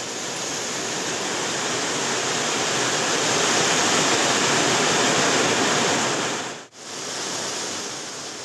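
Heavy downpour: a steady hiss of pouring rain that swells a little, cuts out for a moment about two-thirds of the way through, then resumes.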